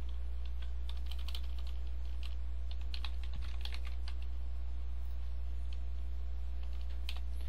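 Computer keyboard typing in a few short bursts of keystrokes, over a steady low hum.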